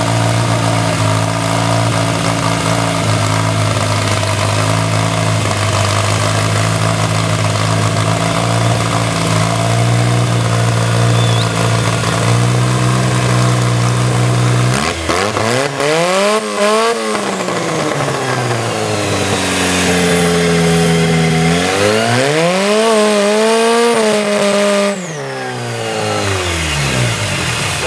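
Hot-saw chainsaw's Toyota 3TC inline four-cylinder engine running steadily, then revved up high and back down twice, about fifteen seconds in and again about twenty-two seconds in, as the saw is run through a log.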